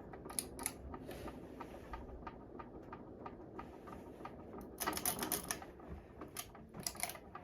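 Hampton Bay Littleton ceiling fan running with new blades: a steady low rush of moving air with scattered light clicks, and a quick run of clicks about five seconds in.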